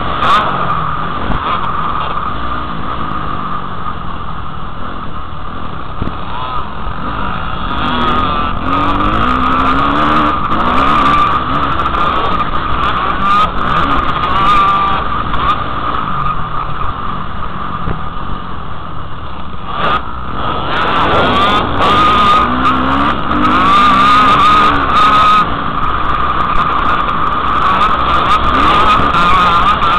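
Motocross dirt bike engines running hard, their pitch rising and falling again and again as the riders accelerate and back off around the track, heard close up from the rider's helmet.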